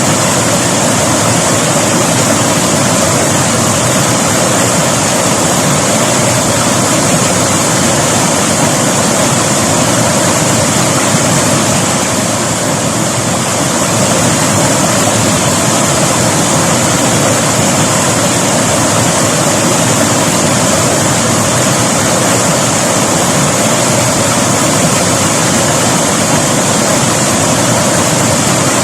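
River water rushing and flowing over rocks: a loud, steady rush.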